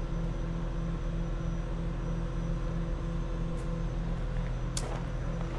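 Engine of a mobile crane running steadily, a constant low hum, while it holds a precast concrete wall panel on its cable. A couple of sharp clicks come in the second half, the louder one near the end.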